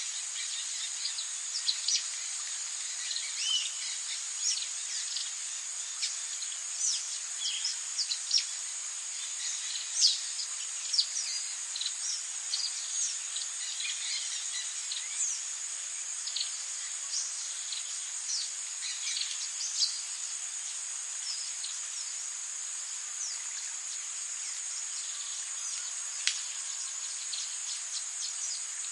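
Rainforest ambience: a steady high-pitched chorus of insects trilling, with many short bird chirps and quick falling whistles scattered throughout.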